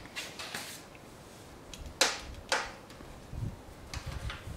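Assembly handling noise: light scraping and clicking, with two sharp knocks about half a second apart in the middle, as bolts are worked through the hard-shell seat and its mounting on the bicycle frame.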